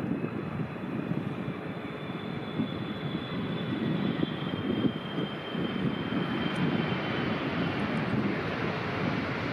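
Jet airliner's engines on landing: a steady rumble under a high whine that slowly falls in pitch as the plane passes.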